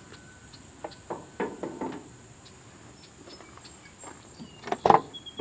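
A few soft steps and light knocks, then near the end a loud sharp clack: the latch and driver's door of an old Dodge pickup truck being pulled open.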